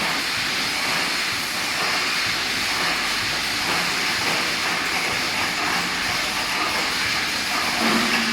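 Automatic rebar mesh welding machine running, giving a steady hissing factory noise with no distinct separate strokes.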